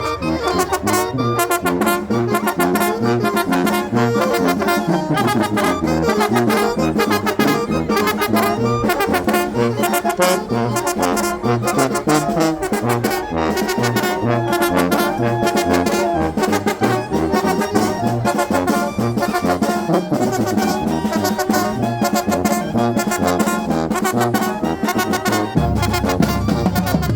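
Traditional Mixtec brass band (banda mixteca) playing a lively tune: trumpets, trombones and saxophones over a steady drum beat.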